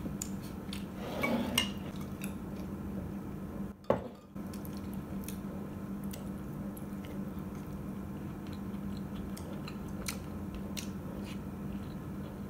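Wooden chopsticks tapping and scraping against a glass bowl of oden as pieces are picked out, with faint chewing and a steady low hum underneath. A single sharp click with a brief dropout comes about four seconds in.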